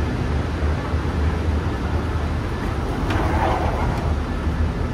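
Steady low vehicle rumble, with a short rise of brighter rushing noise about three seconds in.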